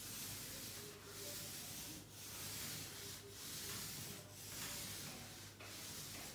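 A paint roller on an extension pole rolling paint across a ceiling: a faint, noisy swish in about six strokes, roughly one a second, with a low steady hum underneath.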